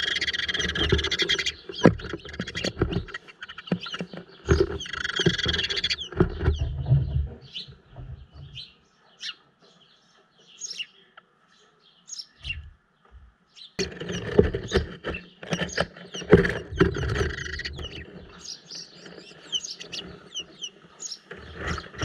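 House sparrows chirping inside a cardboard nest box, with close scrabbling and knocks as the birds move on the cardboard and nest material. The dense chirping comes in bursts: at the start, about five seconds in, and again from about fourteen seconds. Single chirps fall between, with a short lull around ten seconds.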